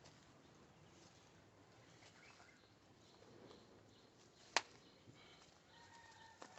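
Near silence: faint outdoor ambience, broken by one sharp click a little past the middle.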